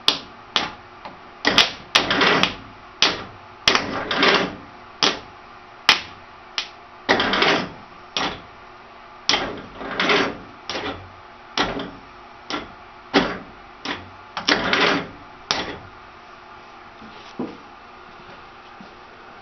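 1942 Ford GPW jeep's starter motor bumped over and over with a jumper lead at the starter switch: about twenty short clunks and whirs, some no more than a click and some lasting about half a second, stopping a few seconds before the end. It is a test of a starter that keeps burning out its starter switches.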